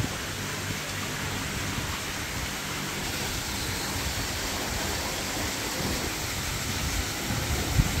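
Steady rush of water falling from a small rock waterfall into a koi pond, with a short bump near the end.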